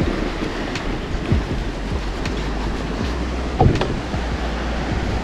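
Wind rumbling on the microphone over shallow water washing at the shoreline, with a short knock about three and a half seconds in.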